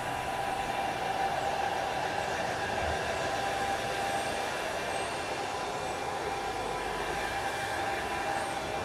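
Handheld hair dryer running on a steady note over the rush of its air, blown across a freshly spray-painted car bonnet to dry the top coat.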